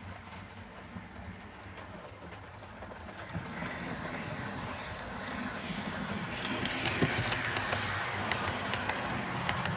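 Model railway train running on the layout: a motor and wheel hum with clicking over the rail joints, growing louder from about three seconds in as the train approaches, then the coaches rolling close past.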